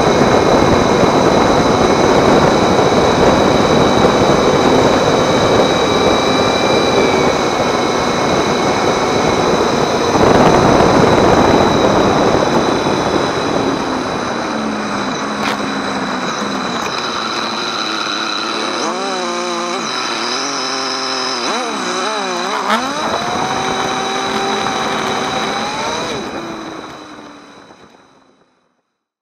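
Motorcycle on the move on a wet road: a loud rush of wind and tyre hiss over the engine, strongest in the first half. Later the rush eases and the engine note rises and falls as the bike slows. Everything fades out near the end.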